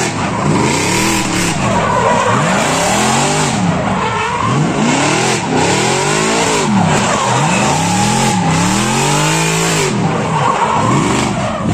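A drift car's engine revving up and down over and over, about every second and a half, while its rear tyres squeal and skid through a sustained slide.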